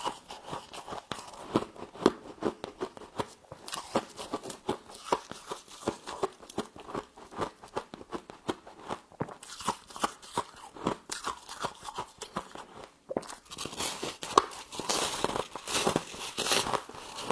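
Close-up crunching of frost being bitten and chewed: a dense, irregular run of crisp crackles, busier and brighter near the end.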